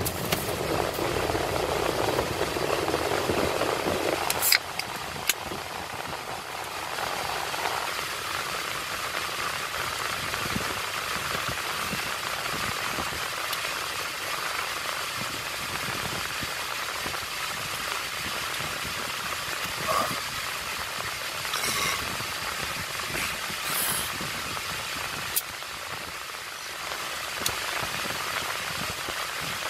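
Steady rushing noise inside a car cabin, with a few faint clicks now and then.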